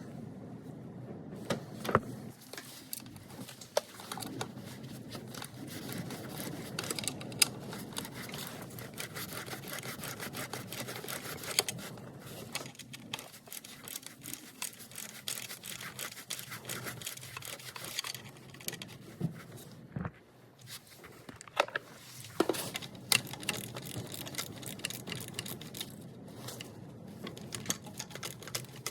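Hand-tool work on an engine: irregular clicks, clinks and knocks of a socket and pliers with rustling handling noise.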